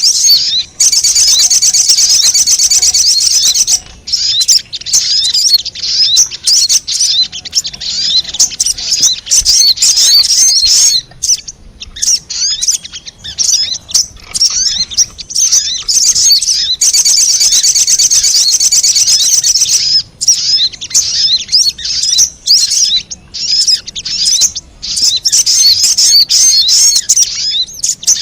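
Sogon (little spiderhunter) lure calls: loud, rapid high-pitched chirps and chatter, broken by two long continuous rapid trills, one near the start and one about halfway through.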